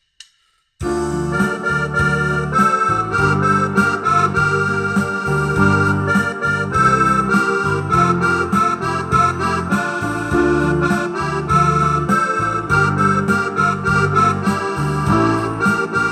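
Yamaha PSR-S670 arranger keyboard playing a song with its accompaniment: a keyboard melody over held bass chords and a steady beat, starting about a second in.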